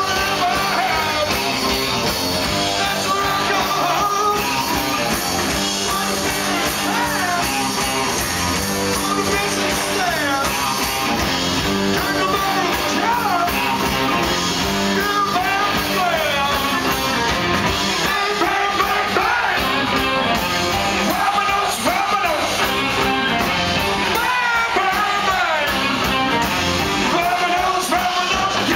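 Live rock band playing loudly: two electric guitars and drums under a male lead vocal singing, heard from among the audience.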